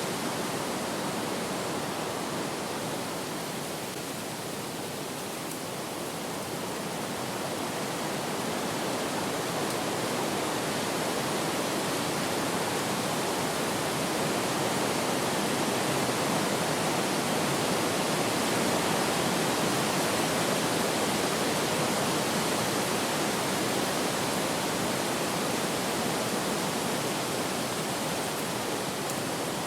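Wind blowing as a steady rushing noise with no distinct tones, easing slightly a few seconds in and swelling again after the middle.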